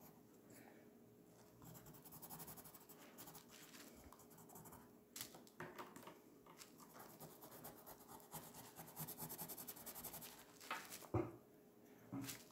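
Pointed tool scratching through a layer of oil pastel on paper (sgraffito), faint quick strokes in short runs. There is one light knock near the end.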